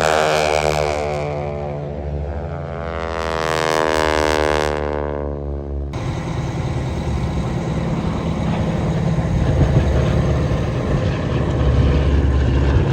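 Propeller airplane flying past, its engine note dropping in pitch as it goes by. About six seconds in, this cuts abruptly to a rougher, steady engine sound that runs on.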